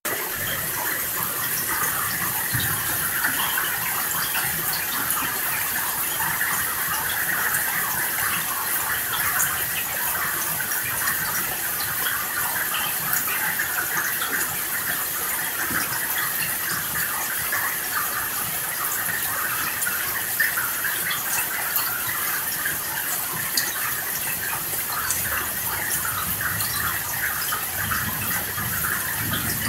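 Steady rain falling, a dense even hiss speckled with many small drop ticks.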